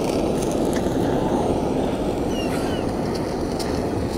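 Handheld gas torch burning with a steady rushing flame as it sears the skin of raw bonito fillets.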